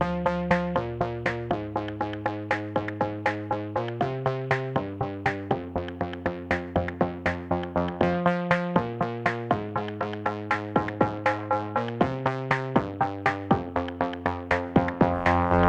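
Background music: electronic track with a quick, steady run of plucked or struck notes, about three to four a second, over held chords; a different piece cuts in at the very end.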